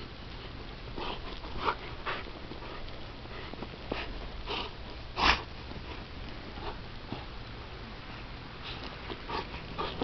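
Bernese mountain dog puppy breathing hard in short noisy huffs as it plays, a string of them with the loudest about five seconds in.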